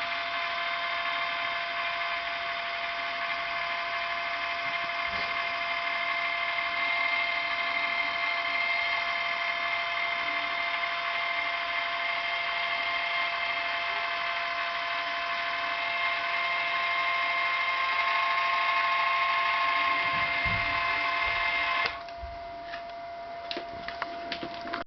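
Small electric drive motor of a G-scale model train turntable whining steadily as the bridge turns. It cuts off suddenly near the end, followed by a few light clicks.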